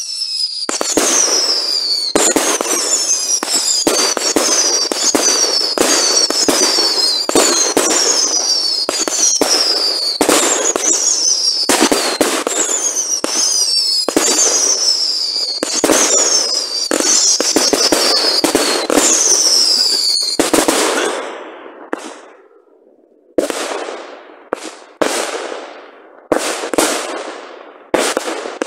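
A fireworks battery firing whistling shots in quick succession, about one a second, each a high whistle falling in pitch with bangs among them. The run stops suddenly after about twenty seconds, and after a short lull a few separate shots bang and burst, each with a fading crackle.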